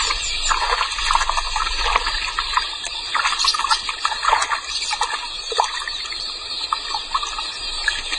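Helmeted terrapins thrashing at the water's surface as they seize and tear at birds: a steady rush of splashing water broken by many short, irregular splashes.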